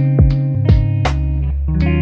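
Background music: guitar-led track with bass and a steady drum beat.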